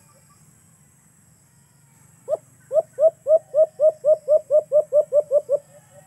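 A bird calling: a rapid series of about fourteen loud hooting notes, each rising and then falling in pitch, at about four a second and quickening slightly, starting about two seconds in and trailing off into a few fainter notes.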